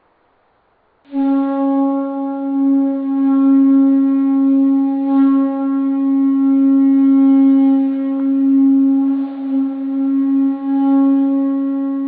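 One long held note on a wind instrument, starting suddenly about a second in and keeping a steady pitch.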